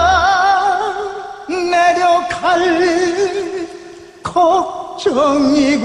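Male singer singing a slow Korean ballad in the sorikkun (traditional folk-vocalist) style: long held notes with a wide vibrato, sung in several phrases with short breaks between them.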